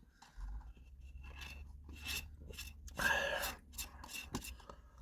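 Close-up eating sounds: a spoon scraping and stirring in a McFlurry cup, with chewing, over a low steady hum. One louder rasping sound comes about three seconds in.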